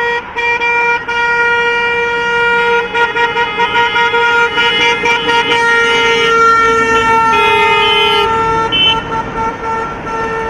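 Many car horns from a wedding convoy honking together as the cars pass. One horn is held steadily throughout while others join in and drop out, and some give short repeated toots near the end.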